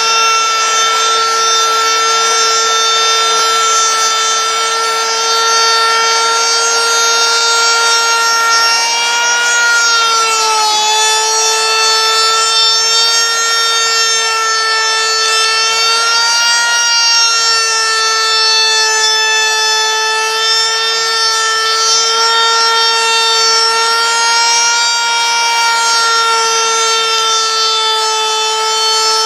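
Router spindle of a homemade CNC machine running at full speed while its bit surfaces an OSB spoilboard: a steady high-pitched whine over the hiss of the cut, its pitch dipping briefly about ten seconds in and again around sixteen seconds.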